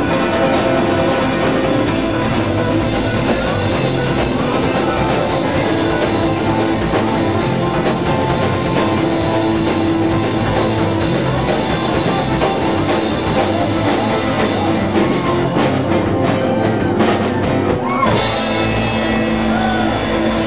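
Live rock band playing, with drum kit and guitar and sustained held notes, heard from among the audience. About sixteen seconds in the high end thins out for a couple of seconds before the full band sound comes back.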